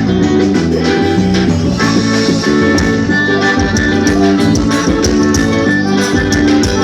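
Forró band playing an instrumental passage: accordion melody over guitar, bass and percussion with a steady beat.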